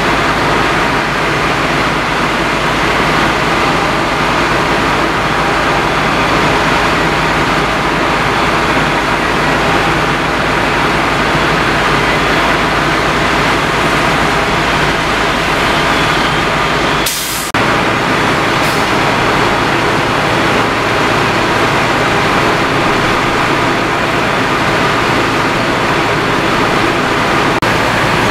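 Fire apparatus diesel engines running hard to drive the pumps, a loud, steady rumble under the hiss of water from hose streams, with a brief sharp break about two thirds of the way through.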